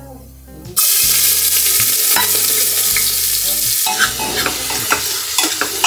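Chopped onions hit hot ghee and cumin in an aluminium pressure cooker and start sizzling suddenly and loudly about a second in. The sizzle eases a little after about four seconds as a spoon stirs and scrapes the onions around the pot.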